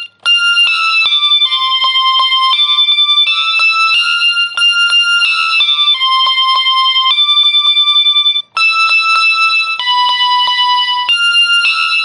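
Background music: a bright, high-pitched keyboard melody with no bass, its notes changing about twice a second, breaking off briefly at the start and again about two-thirds through.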